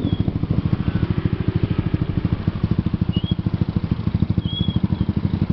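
Motorcycle engine running steadily under way, a fast even pulse of firing strokes with road and wind noise over it.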